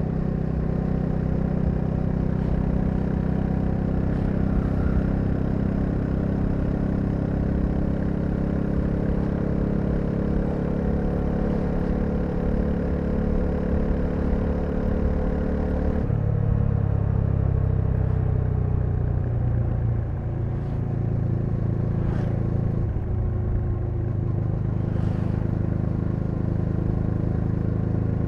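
Bajaj Dominar 400's single-cylinder engine running while riding, its pitch climbing slowly. About sixteen seconds in the pitch drops suddenly, sags for a few seconds, then rises again and holds steady.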